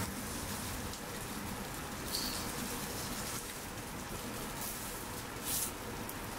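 Surimi-and-tofu patties frying in a little oil in a pan over a gas burner: a steady sizzle with a few brief, sharper spits.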